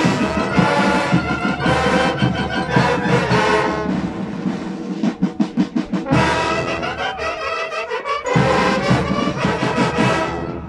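Student marching band of brass and drums playing a march, loud throughout, with a stretch of short clipped chords about halfway through. The full band comes back in, then the music stops right at the end.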